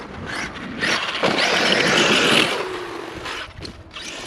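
Arrma Outkast 8S RC truck driving on dirt: a noisy rush of tyres and drivetrain, loudest from about one to two and a half seconds in, then easing off.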